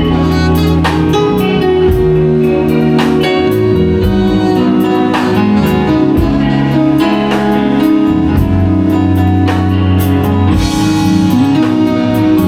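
Live band playing an instrumental passage at a sound check: held guitar chords that change every couple of seconds, over a drum kit keeping a steady beat.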